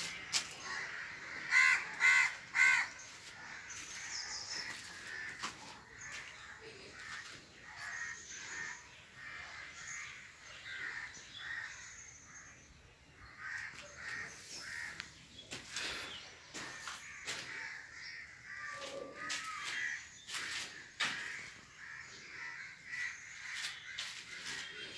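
A crow cawing three times in quick succession about two seconds in, followed by softer scattered bird calls and occasional sharp clicks and knocks.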